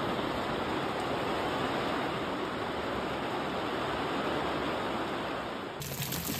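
Heavy rain falling on a roof, a steady even hiss. Near the end it gives way to rain outdoors, with close, crisp drop taps.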